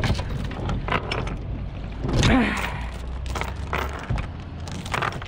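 Anchor chain clanking and rattling over a sailboat's bow roller as the anchor is brought aboard, with the boat's engine running low underneath.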